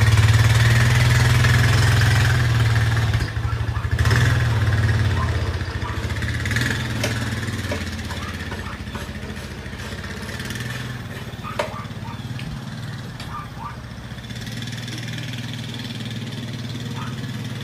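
Four-wheeler (ATV) engine running as it is ridden away, louder in the first several seconds and then settling to a quieter, steady hum.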